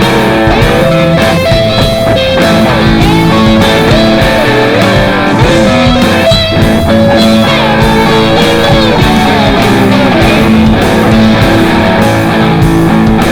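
Rock music with electric guitar lines over a steady beat.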